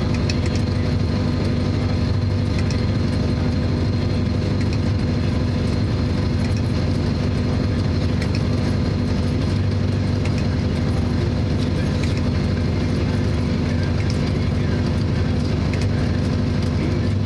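Tractor engine running steadily while pulling a working hay baler.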